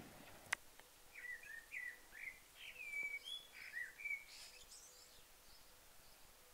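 A songbird singing a short, varied phrase of quick chirping and whistled notes for about three seconds. A single sharp click comes just before it, about half a second in.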